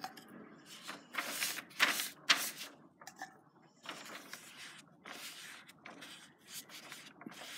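Paintbrush brushing paint onto poster paper in short, irregular strokes.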